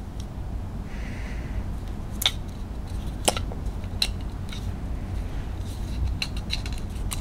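A white plastic laptop power adapter handled in the hands: scattered small clicks and taps, more frequent near the end, over a low steady rumble.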